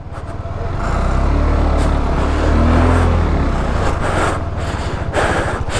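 Motorcycle engine running at low speed on a rutted mud track, with a deep engine rumble that builds over the first second and then holds.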